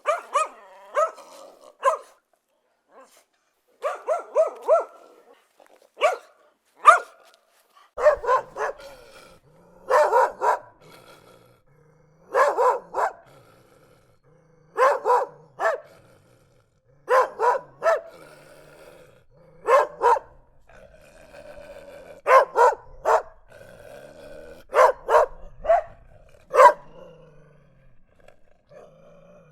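Dogs barking angrily in short bursts of one to four barks, every second or two.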